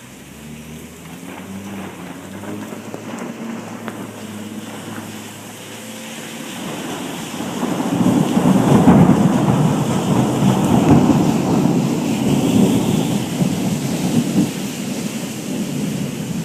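Thunderstorm: rain falling steadily under a low rumble of thunder. About eight seconds in, a long, loud peal of thunder swells up, rolls on for several seconds and slowly fades.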